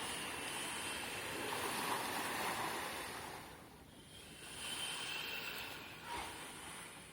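Ocean waves washing ashore in two swells: a long surge in the first half and a shorter one about two-thirds of the way through.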